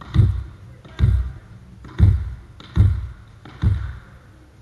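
A volleyball bounced on a wooden sports-hall floor five times, about once a second, each bounce echoing around the hall.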